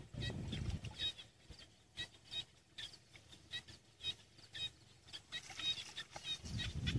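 Small animals chirping: many short, high-pitched chirps repeating several times a second, with a low rumble in the first second and again near the end.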